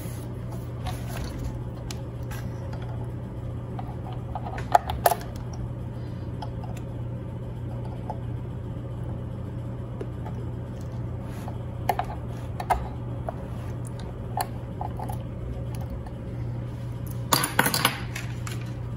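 Steel tremolo springs of a Floyd Rose bridge being hooked onto the spring claw with needle-nose pliers: a few sharp metallic clicks and clinks spread out, with a quick cluster of them near the end. A steady low hum runs underneath.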